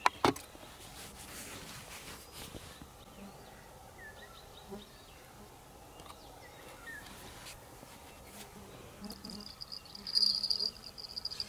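Quiet outdoor ambience with a sharp click right at the start and a few faint bird chirps. About nine seconds in, a high, steady, insect-like buzzing trill comes in and lasts about two seconds; it is the loudest sound apart from the click.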